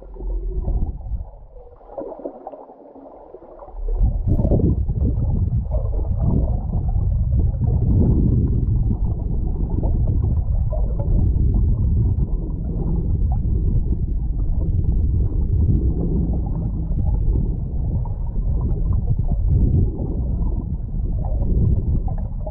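Muffled rushing and gurgling of water against a GoPro in its waterproof housing, on a submersible towed through the sea. It is uneven for the first few seconds, then turns loud and steady about four seconds in, deep and dull with no high sound.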